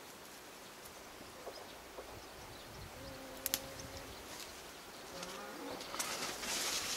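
A flying insect buzzing close by in two short passes, the first about three seconds in and holding a steady pitch, the second a second or so later and rising in pitch. Near the end, leaves and stems rustle as the plants are brushed.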